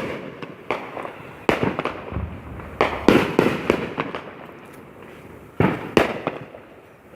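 Fireworks going off: a run of sharp, loud bangs at uneven intervals, two close together about three seconds in and two more near the six-second mark, each fading away after it.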